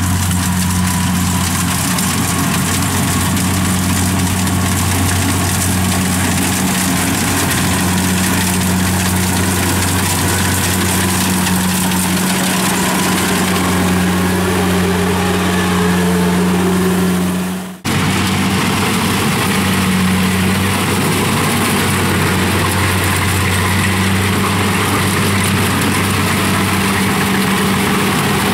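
Kubota rice combine harvester running steadily under load as it cuts and threshes rice, a constant low engine drone with machinery noise over it. The sound breaks off briefly about two-thirds of the way through, then carries on unchanged.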